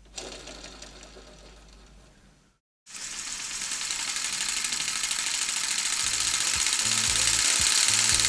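Plywood pneumatic (steam-engine-style) model engine running, its wooden piston, valve and flywheel making a rapid clatter that grows steadily louder. Before it, a shorter sound fades out over the first couple of seconds and breaks off.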